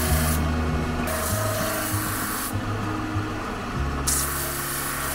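Background music with held, slowly changing chords over a rasping rub of metal being worked with an abrasive on a hand-forged knife blade; the rasping stops twice, about half a second in and again for about a second and a half past the middle.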